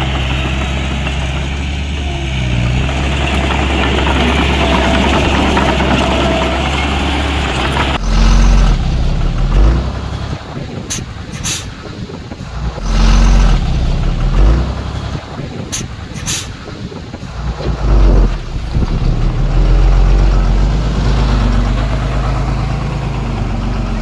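Heavy diesel engine of construction machinery running steadily. After an abrupt change about a third of the way in, the engine surges unevenly, with a few sharp clanks.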